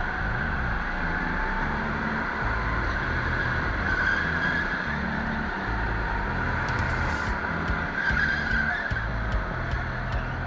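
Go-kart heard from onboard at race pace: a continuous motor sound whose pitch rises and falls with speed through the corners, over tyre and track noise.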